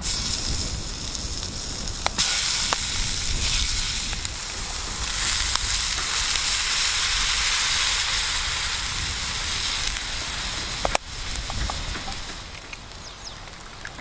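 Food sizzling in a hot 24 cm iron frying pan over a wood fire. The sizzle starts suddenly, swells in the middle and dies down toward the end, with a few sharp knocks about two seconds in and again near the end.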